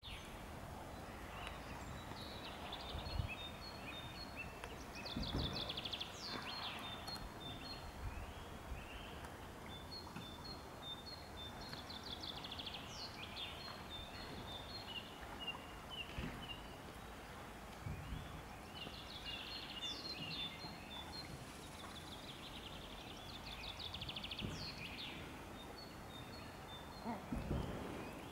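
Small songbirds singing: rows of short high notes and a trilled phrase repeated every several seconds. A few dull low thumps come through now and then.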